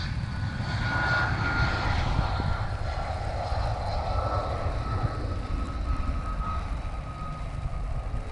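Jet airliner's engines at takeoff power as it climbs away: a steady rumble with a high whine that slowly drops in pitch.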